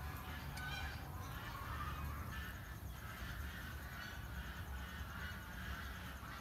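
Birds calling now and then, faint, over a low steady rumble.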